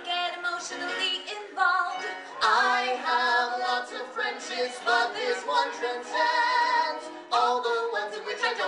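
A man and a woman singing a duet live, with long held notes that waver in vibrato.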